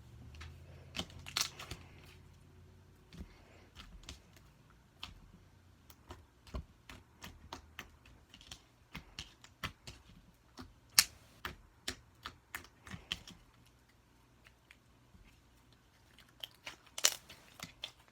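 Slime being played with, giving irregular sharp pops and clicks, about one or two a second, with louder clusters about a second in and near the end.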